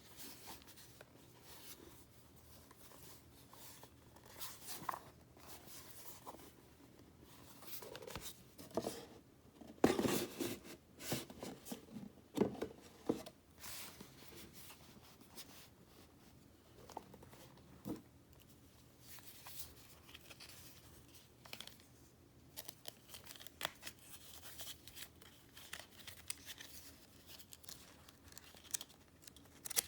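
Watch-box packaging being unwrapped by hand: scattered tearing, crinkling and rustling with small knocks, busiest about a third of the way in.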